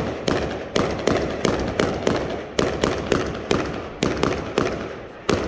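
Fireworks going off in a rapid, steady barrage: sharp bangs about three a second, each trailing off in a rumbling echo.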